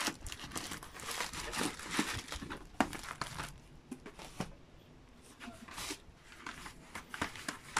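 Clear plastic wrapping around a reel-to-reel tape crinkling as it is handled, and cardboard tape boxes being pulled from a box: a run of short rustles and light knocks, quieter for about a second midway.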